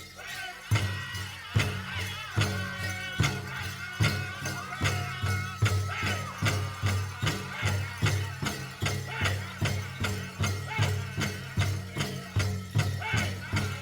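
Powwow drum group: a large drum struck by several singers in a steady, even beat that comes in about a second in, under high-pitched group singing. Dancers' bells jingle along with it.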